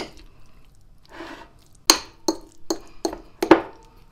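Metal fork mashing soaked göce tarhana in a ceramic bowl. There is a scrape about a second in, then five sharp clinks of the fork against the bowl, roughly one every half second.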